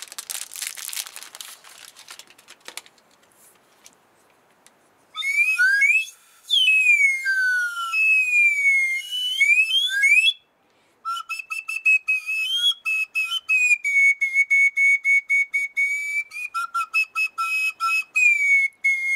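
Faint rustling, then a small hand-held whistle blown in long sliding notes that sweep up and down. After a short break it plays a quick run of short separate notes, mostly on one pitch with a few steps up and down.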